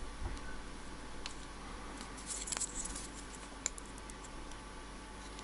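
Small clicks and scrapes of pliers and plastic being handled as the brush lead on a Bosch alternator's brush holder and regulator is worked, with a cluster of clicks a little past two seconds in and a single sharp click shortly after.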